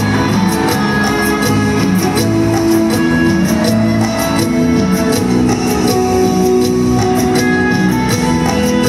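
A live band plays an instrumental passage with electric guitar, keyboards and a steady beat, heard over the arena's PA from far back in the stands.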